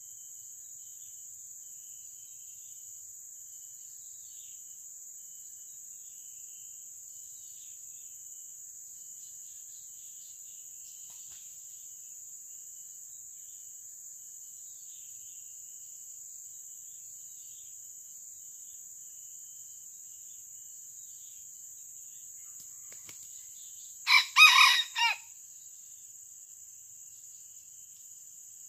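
A red junglefowl rooster crows once, a short clipped crow of a little over a second near the end. A steady high-pitched insect drone runs underneath.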